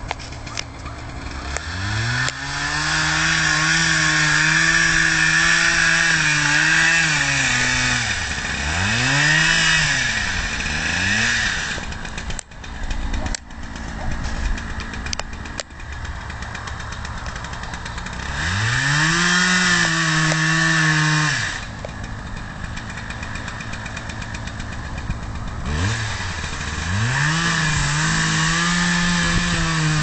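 Husqvarna 3120, a big two-stroke chainsaw, run up to full throttle and held there while cutting into the base of a large tree trunk, in three long bursts, with quick blips near the end of the first and the engine dropping back to idle between.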